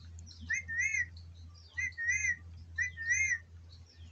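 Indian ringneck parrot whistling the same short phrase three times, about a second apart: a brief note, then a rising-and-falling whistle.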